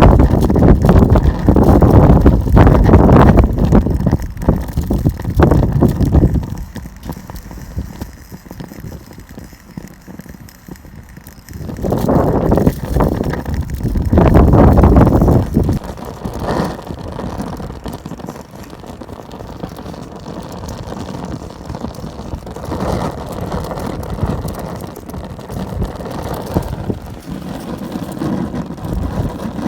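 Homemade alcohol stove burning in strong, gusting wind, the wind buffeting the microphone with a low rushing noise. The gusts are loudest in the first six seconds and again from about twelve to fifteen seconds, with a steadier, quieter rush between and after.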